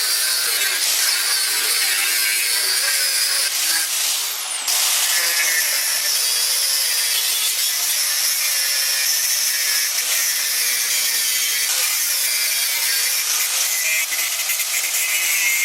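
Power tool working metal: a steady, high-pitched abrasive noise with a short dip about four to five seconds in.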